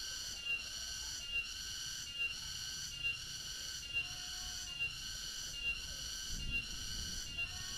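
Cicada singing: a steady, high-pitched, ringing drone with a short regular pulse a little more often than once a second.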